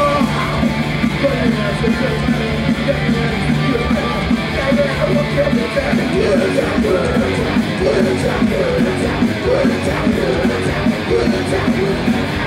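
A punk rock band playing a song live, loud, on amplified electric guitars, bass and drums.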